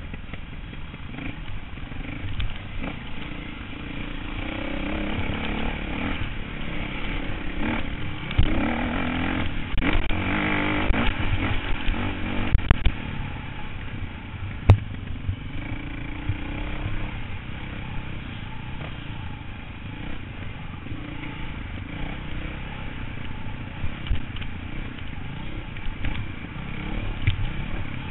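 Dirt bike engine heard from the rider's helmet, revving up and down as it rides a trail, louder and busiest a few seconds in, with a few sharp knocks around the middle.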